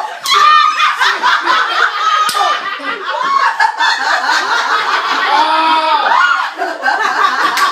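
Several people yelling and laughing excitedly over one another, with a few sharp slaps. It is an outburst as a player goes out and wins the hand.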